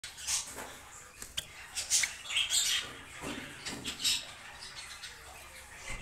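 Silver Java sparrows giving short chirping calls, about half a dozen scattered irregularly, the loudest cluster about two seconds in.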